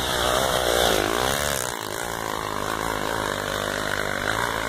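Off-road motorcycle engine revving hard on a trail climb, its pitch rising and falling about a second in, then running steadily under load.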